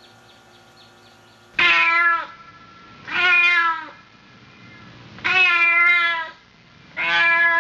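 A cat meowing four times in drawn-out calls, each under a second long, the pitch dropping at the end of each.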